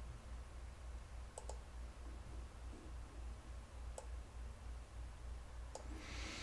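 A few faint computer mouse clicks, a quick double click about a second and a half in and single clicks later, over a low steady hum, with a brief hiss near the end.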